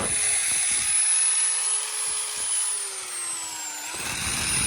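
Small electric power tool motor running with a high whine, its pitch sagging under load about three seconds in, then picking back up near the end.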